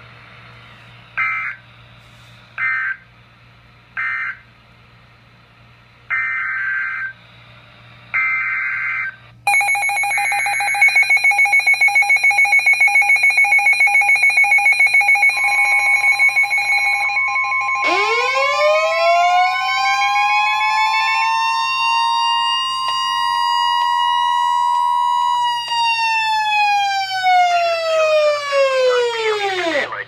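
NOAA Weather Radio alert sequence through weather radio speakers: three short SAME data bursts marking the end of the previous warning, then longer data bursts of a new alert header. About ten seconds in, the receivers' alarms start: a rapid pulsing beep, then a siren that winds up, holds, and winds down near the end, with the steady weather radio warning alarm tone sounding under it for about ten seconds.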